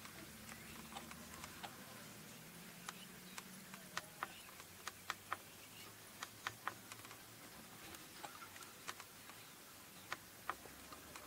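A scattered series of faint, sharp, irregular clicks and ticks, some in quick pairs or triplets, over a quiet background, with a faint low hum in the first few seconds.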